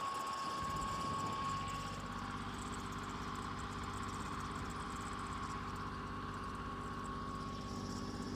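An engine running steadily at idle, with a thin high whine that fades away within the first two seconds.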